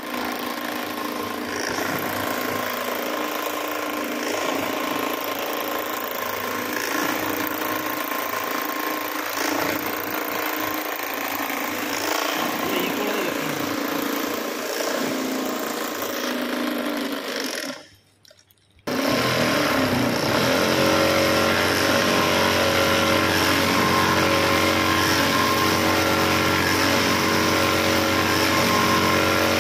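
Industrial sewing machine running steadily as polypropylene woven sack fabric is fed through and stitched, amid machine hum. The sound drops out for about a second just past the middle, then returns as a louder, steadier hum.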